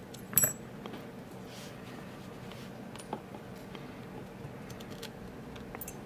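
Small metallic clicks and clinks of a brass lock plug, its key and its tiny pins being handled over a pin tray while the lock is taken apart. There is a sharp clink about half a second in, a lighter one about three seconds in, and a few faint ticks near the end.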